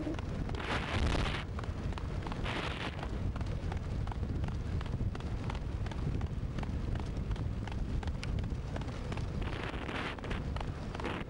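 Metal dryland dog cart rolling fast on asphalt: a steady low rumble from the wheels with many small rattling clicks from the frame. Wind buffets the microphone in a few gusts, about a second in, again near three seconds, and near the end.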